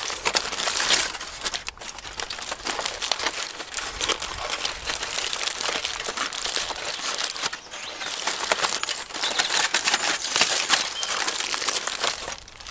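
Aluminium foil crinkling as hands fold and crimp a foil packet shut: a dense run of small, sharp crackles.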